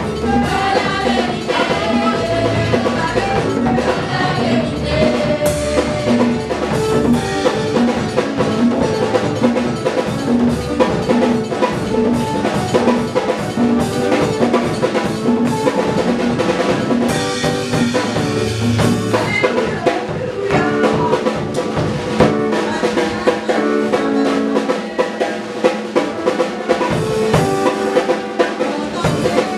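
Live gospel praise music led by a Yamaha drum kit playing a busy beat with snare and bass drum, under held instrument notes, with women's voices singing in the first few seconds. The low bass thins out about two-thirds of the way in, leaving the drums more exposed.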